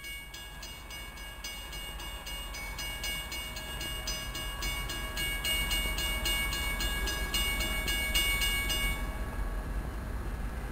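Railway warning bell ringing rapidly, about four strikes a second, and cutting off suddenly about nine seconds in, over a low rumble that slowly grows louder as a train approaches the station.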